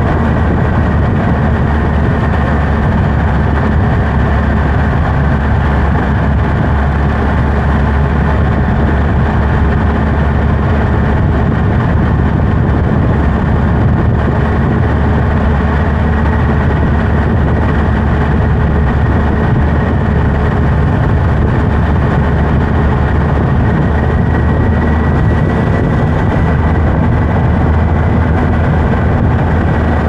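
Kawasaki Z H2 motorcycle's supercharged inline-four engine running steadily while riding, an even low engine note with a thin steady whine above it.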